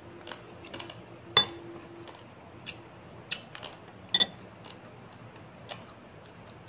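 Dishes and tableware clinking and knocking on a table while a meal is eaten by hand, with scattered small clicks; the loudest is a sharp ringing clink about a second and a half in, and a double clink about four seconds in.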